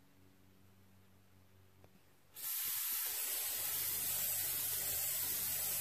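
Aerosol coconut oil cooking spray hissing into a slow cooker's crock: one continuous spray that starts suddenly about two seconds in and holds steady.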